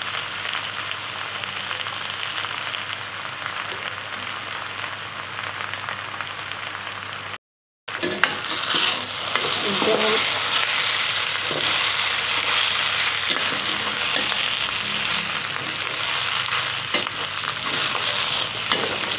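Macaroni with tomato and vegetable masala sizzling in a steel kadhai while a perforated steel spatula stirs it, with short scrapes and clicks of metal on the pan. The sizzle cuts out briefly about seven seconds in, then comes back a little louder as the stirring goes on.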